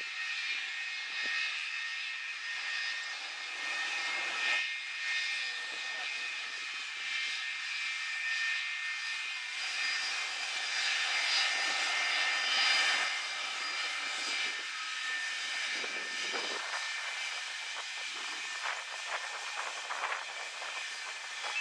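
McDonnell Douglas MD-82 jet taxiing, its rear-mounted Pratt & Whitney JT8D turbofan engines running at low power with a steady whine of several high tones over a rushing noise.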